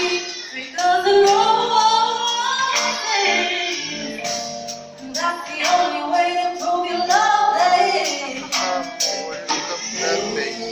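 A woman singing a melody into a microphone over a live band of electric guitar, bass guitar, drums and keyboard, with a steady drum beat.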